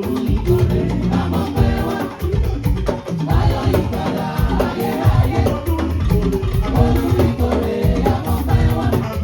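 Choir singing with drum accompaniment, a lively rhythmic song.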